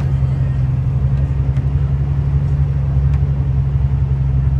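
A logging vehicle's engine running steadily under load, heard from inside the cab while driving up a gravel road, with a few faint clicks or rattles.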